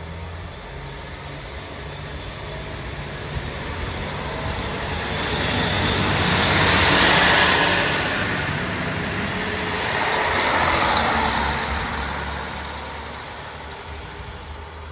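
KiHa 40 diesel railcar going by close, its diesel engine humming under the rattle of the wheels on the rail. The sound grows to a peak about halfway through, peaks again briefly, then fades. A thin high whine sounds over it until about the middle.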